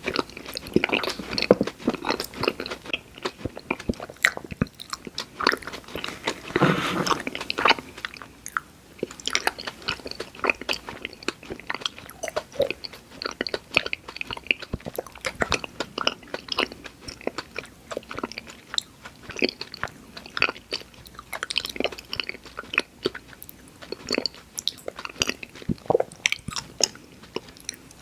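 Close-miked chewing and biting of sweets and candy, with irregular crunches and wet mouth clicks. A denser burst of crunching comes about six to seven seconds in.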